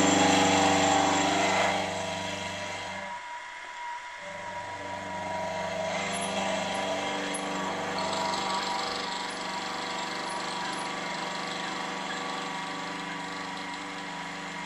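Milling machine running with its cutter machining the slide-bar face of a small brass bracket, a steady motor hum with cutting noise. The sound is loudest for the first couple of seconds, drops about three seconds in, then runs on steadily.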